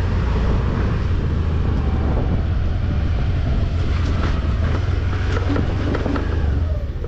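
Honda scooter's small engine running with road and wind noise while riding at low speed, a steady low hum; the sound eases off near the end as the scooter slows.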